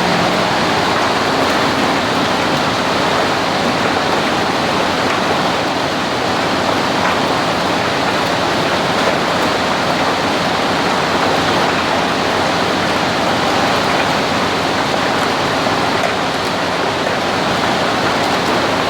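PET plastic recycling machinery running, a loud, steady, even rushing noise like pouring water.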